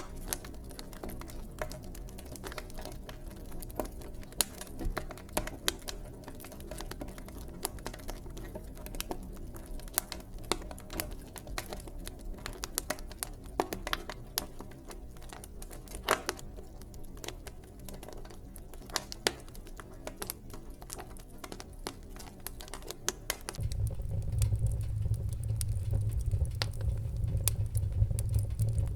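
Wood fire in a fireplace crackling, with frequent sharp pops and snaps over a low rumble of flames. The low rumble grows suddenly louder near the end.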